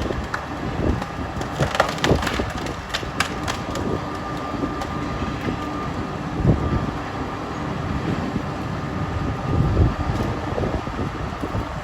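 Heizohack tractor-driven drum wood chipper chewing through logs: wood cracking and splintering in a string of sharp snaps over the steady running of the machine.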